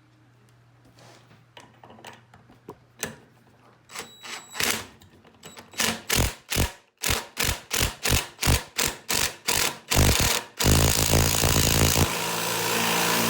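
Cordless impact driver with a 9/16" socket driving a soap-lubricated screw into a pilot hole. After a few faint handling clicks, it runs in short trigger pulses about two and a half times a second, then runs continuously near the end as the screw is driven in.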